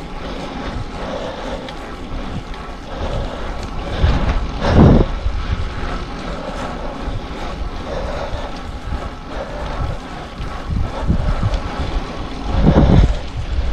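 Wind rushing over the microphone of a moving bicycle rider, with louder low buffets about four to five seconds in and again near the end.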